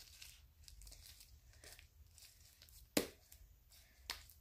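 Green slime being stretched and kneaded by hand, with faint sticky crackling. Two sharp pops stand out, about three seconds in and again a second later.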